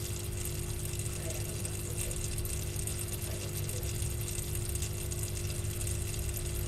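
Steady low background hum with a few constant tones and a faint hiss, like a small motor or appliance running; it does not change.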